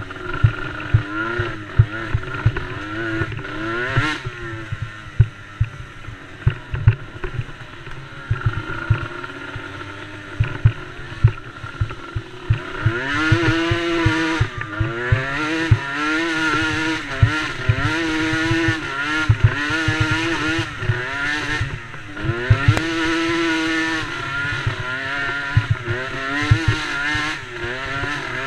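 Small youth ATV engines racing, revving up and down as riders shift and lap the track; from about halfway through more engines are heard at once and the sound gets louder.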